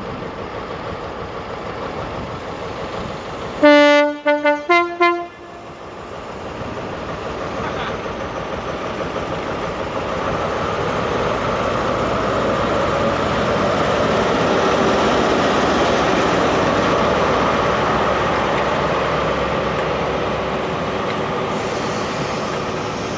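Two-tone train horn sounded about four seconds in: a low note, then a quick run of short higher toots. Then the steady rush of a train passing, growing louder, peaking about halfway through, and easing off near the end.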